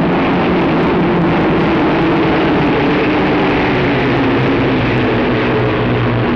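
Piston engines of propeller-driven biplanes droning steadily in flight at an even, loud level, with a heavy hiss over the low engine tones.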